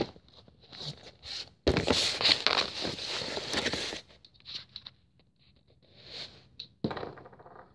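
Rustling and scraping of clothing and body against cardboard as a person gets down onto his belly. A loud burst of about two seconds, then a shorter scrape near the end.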